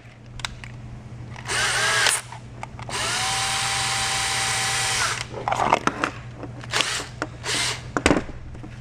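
Small handheld power tool motor running in short bursts: a brief burst, then a steady run of about two seconds, each spinning up in pitch as it starts, followed by a few shorter bursts.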